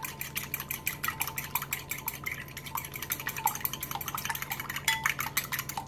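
Metal fork beating an egg in a glass bowl: a rapid, steady run of clicks as the tines strike the glass, several strokes a second.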